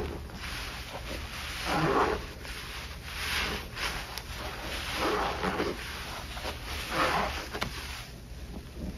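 Soapy sponge squeezed and worked in a basin of thick suds, making wet squelching, sloshing strokes about every one and a half to two seconds, over a steady low hum.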